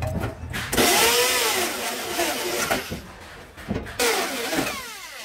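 Handheld electric drill boring into a stainless steel gas stove top. The motor's whine rises and falls as the bit bites into the metal, with a harsh cutting noise, in two bursts: one about a second in and another at about four seconds that winds down in pitch.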